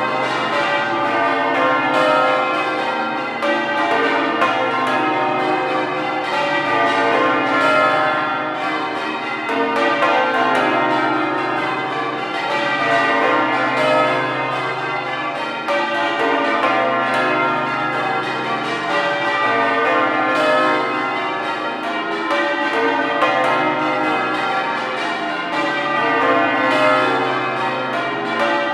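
Exeter Cathedral's ring of twelve church bells, with its 72-hundredweight tenor, being change-rung: a continuous, evenly paced stream of bell strikes, one bell after another, their tones overlapping and ringing on.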